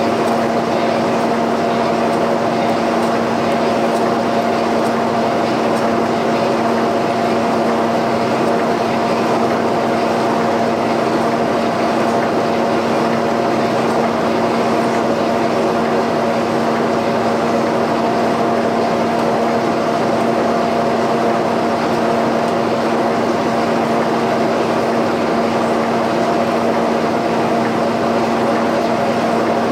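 A shop machine running steadily with a constant hum, unchanging throughout.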